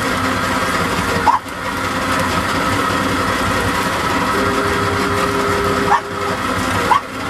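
Mullet boat's engine running steadily, heard from on board, with a few short rising squeaks about a second in and near the end.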